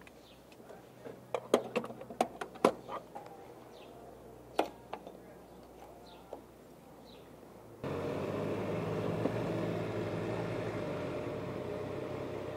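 A run of sharp clicks and clunks as the fuel nozzle is hung back on the pump and the motorcycle's filler cap is snapped shut. About eight seconds in, the motorcycle engine comes on suddenly and runs steadily at idle.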